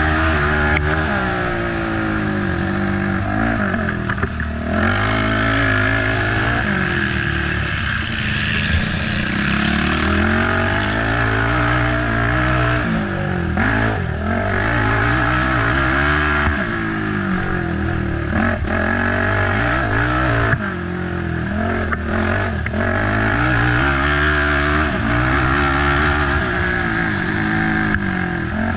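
Race ATV engine revving hard and easing off again and again as it is ridden flat out, with a few sharp knocks along the way.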